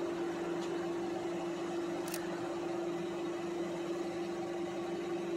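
Steady mechanical hum with a constant mid-pitched tone over a low hiss, unchanging throughout, with a faint click about two seconds in.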